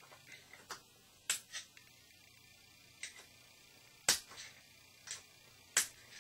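A series of sharp, irregular metallic clicks and taps: a screwdriver poking into and knocking against an unscrewed MAP gas torch tip to free solder that has fallen into it.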